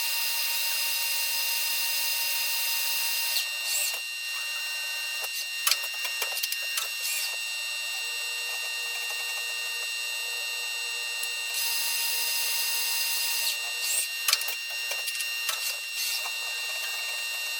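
A machine or power tool motor running with a steady whine that changes pitch pattern twice, with scattered sharp clicks and knocks of handled metal parts.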